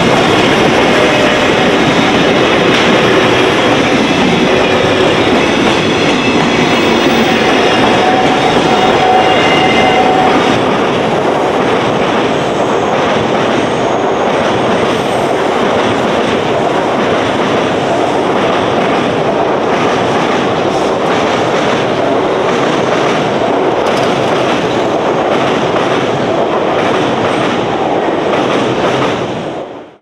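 Freight train of container wagons rolling past at close range, the wheels clattering rhythmically over rail joints, until it fades out at the very end.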